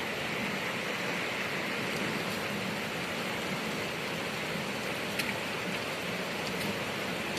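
Steady rain falling, an even hiss with a few single drops clicking now and then.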